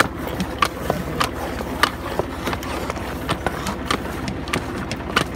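Metal scrapers scraping and knocking through thickening jaggery against a wooden cooling tray, giving irregular sharp clicks, a few a second, over a steady low hum.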